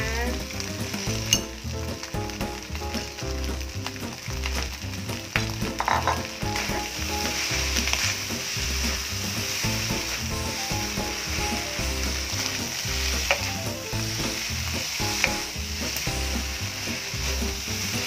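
Fried rice with squid and shrimp sizzling in a hot wok while it is stirred and tossed with a wooden spatula. Now and then the spatula knocks sharply against the pan.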